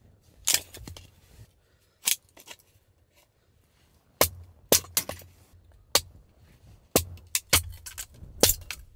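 Hatchet chopping into a log to split kindling: about nine sharp wooden knocks at an uneven pace, with a pause of over a second near the middle.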